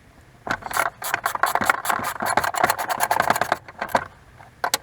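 Ratchet wrench clicking rapidly as a bolt is turned, for about three seconds, followed by a few separate metal clicks near the end.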